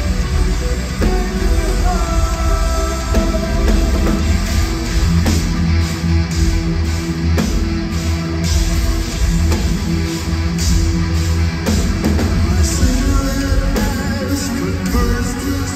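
Progressive metal band playing live: heavy electric guitar, bass, drum kit with cymbal strokes, and synth keyboards, loud and dense as heard from the audience.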